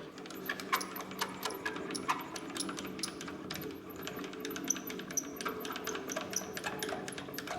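Mini metal lathe running with a steady hum and a faint high whine, with a quick patter of light metallic clicks and rattles throughout.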